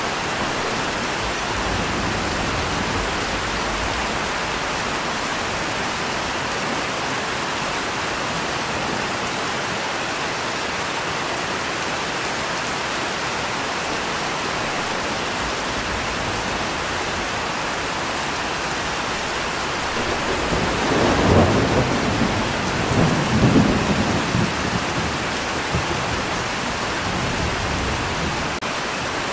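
Steady rain falling, with a rumble of thunder about twenty seconds in that swells twice and dies away over several seconds.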